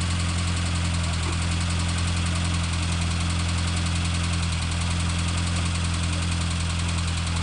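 Sitayo 85 engine running steadily at a constant speed, a low even hum that does not change.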